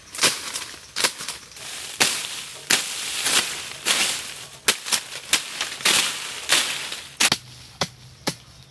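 Machete chopping and slashing through brush and undergrowth: a series of sharp strikes, about one every two-thirds of a second, with leaves rustling between them.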